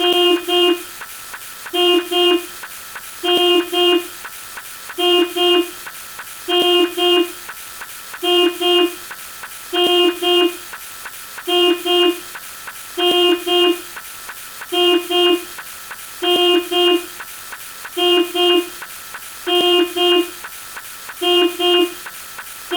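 Car horn sound effect: a double honk, two short beeps in quick succession, repeated about every 1.6 seconds over a faint steady hiss.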